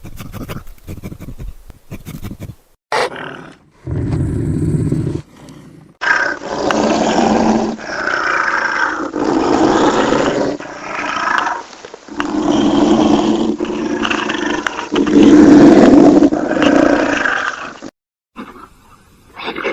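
Loud animal calls played as several separate recordings: a few short sounds in the first seconds, then a long series of deep, pitched calls lasting about twelve seconds that stops suddenly near the end.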